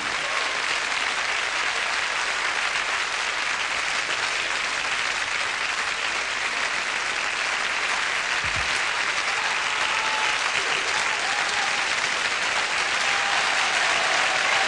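Live concert audience applauding steadily at the end of a song.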